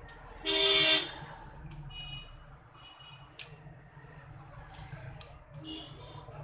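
Vehicle horns honking: a loud short toot about half a second in and another right at the end, with fainter horn tones in between. A few light clicks between the honks.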